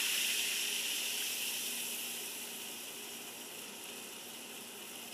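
Baking soda and vinegar reaction fizzing as foam surges up and spills out of the bottle: a steady hiss, strongest at first and slowly dying away.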